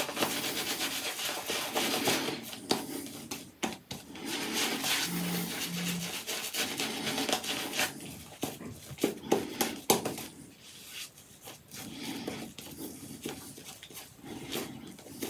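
Apshave Cashmere shaving brush swishing and rubbing wet shaving-soap lather over the face in quick, uneven strokes, whipping the soap into lather on the skin.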